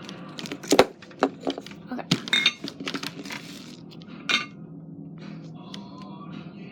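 Hard clicks and knocks of slime containers and their lids being handled and set down on a hard surface, loudest about a second in and again after about four seconds, then fading to a low background hum.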